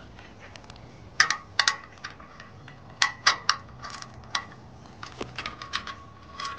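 Sharp, irregular metallic clicks and clinks from a small steel rivet nut (nutsert) and a hand nutsert tool being worked into a hole in a steel rack upright, each click ringing briefly.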